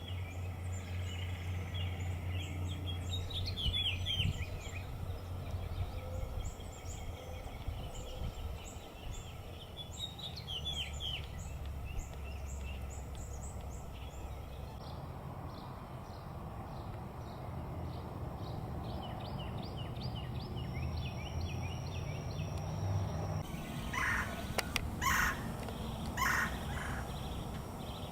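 Birds calling: scattered high chirps and short call series, with louder, lower calls repeated about once a second near the end, over a steady low rumble.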